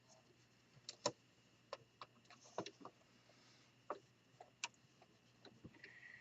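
Near silence with a dozen faint, scattered clicks and taps from fabric and sewing machine being handled. The machine is not running.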